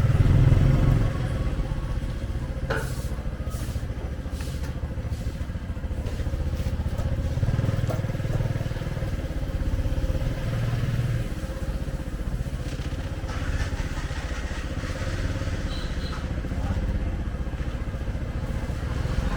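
A vehicle engine running steadily with a low rumble, with a few faint clicks about three seconds in.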